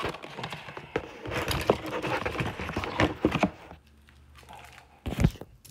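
Cardboard box and plastic packaging being handled and pulled open: rustling, crinkling and scraping for about three and a half seconds, then a quieter stretch and a sharp thump near the end.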